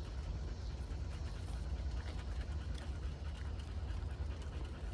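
A dog panting over a steady low rumble.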